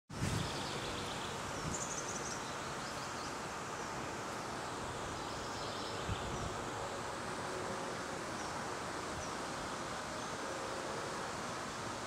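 Outdoor ambience: a steady even hiss of background noise with a few faint high chirps, and a couple of low bumps near the start and about six seconds in.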